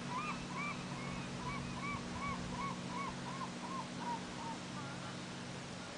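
A gull calling a rapid series of about a dozen short, arched yelping notes, roughly three a second, that trail off about four seconds in. A steady low hum runs underneath.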